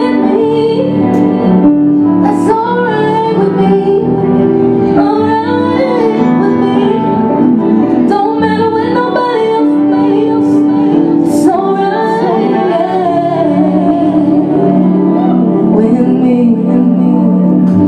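A woman singing with a live band: acoustic guitar, electric guitar and bass guitar. Her voice bends and glides over steady chords.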